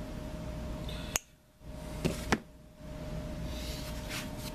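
Sharp little metal clicks of steel needle-nose pliers and a cotter pin being worked into a tight hole in a winch part: one click, then two close together about a second later, and a brief scrape near the end, over a steady background hum.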